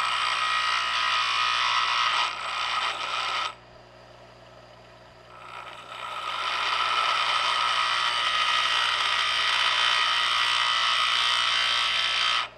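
Bench grinder wheel grinding a chip breaker into a lathe tool bit: a steady, high grinding hiss of steel on the abrasive wheel, which stops for about two seconds a third of the way in and then resumes.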